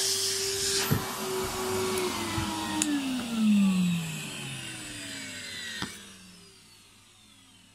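Numatic Henry vacuum cleaner running, then switched off: after about two seconds its motor winds down in a falling whine that fades out over several seconds.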